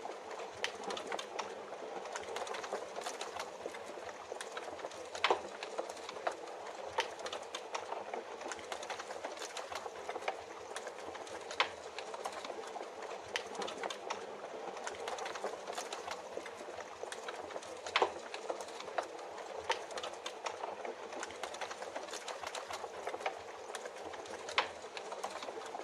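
Wood fire crackling in a fireplace, with irregular sharp pops, over a steady hiss of rain.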